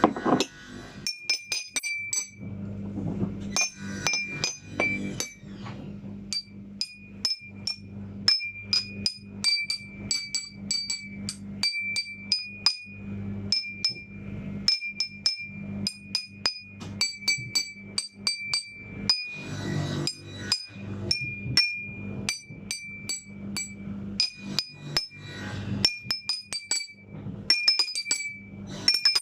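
A row of water-filled glass goblets struck with a small metal spoon, dozens of light taps at about one to three a second, sometimes in quick runs. Each tap rings a short, clear tone whose pitch differs slightly from glass to glass, set by how much water each holds. A low steady hum runs underneath.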